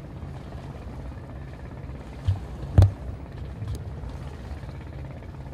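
Steady low rumble of a boat engine, with a sharp knock about halfway through and a couple of fainter knocks around it.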